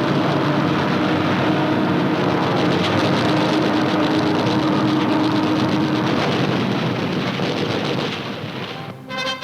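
Dubbed aircraft-engine sound effect on an old newsreel soundtrack: a loud, dense, steady roar with a held drone that stops about six seconds in. The roar thins and drops away shortly before the end, as orchestral music comes in.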